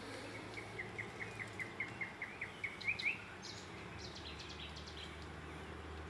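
Nightingale singing: a phrase of about a dozen quick, evenly repeated notes that grow louder and end in a sharper flourish about three seconds in, followed by a few high thin notes. A steady background hiss runs underneath.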